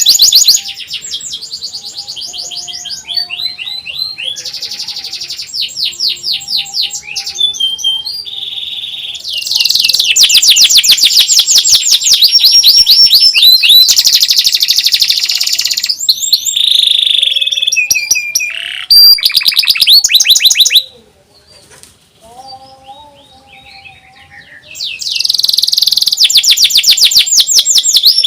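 Domestic canary singing a loud song of fast trills and rolls: runs of rapid repeated notes broken by a few sliding whistles, dropping away for a few seconds past the middle before picking up again.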